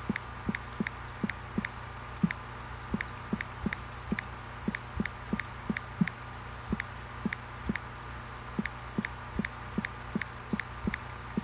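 Small water plinks in an aquarium setup, unevenly spaced at about two to three a second, over a steady low pump hum.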